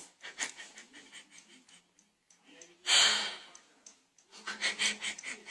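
A cat sneezes once, a loud, short burst of noise about three seconds in, amid quieter short clicking sounds.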